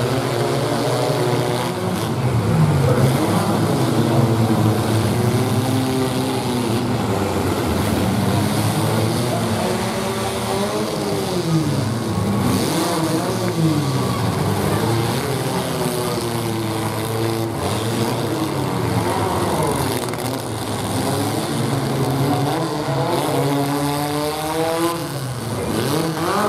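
Engines of several modified compact pickup trucks running and revving up and down over one another in a demolition derby, with a few sharp knocks from the trucks colliding.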